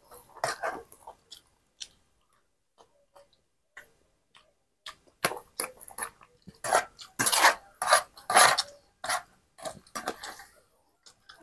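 Metal spoon scraping and clinking against a plate, scooping up rice and soup, with eating sounds. The strokes are sparse at first, then come fast and loud through the second half.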